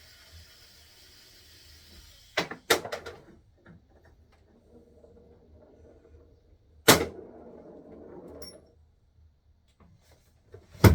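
Bed-frame parts being knocked and wrenched apart: two sharp knocks about two and a half seconds in, a loud bang with a short rattle near seven seconds, and another sharp knock at the very end. A faint steady hiss runs under the first two seconds.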